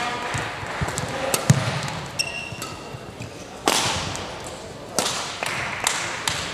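Scattered sharp cracks of badminton racket strings hitting shuttlecocks, and shoes on the court floor, echoing through a large sports hall, with voices murmuring in the background. The loudest crack comes about three and a half seconds in.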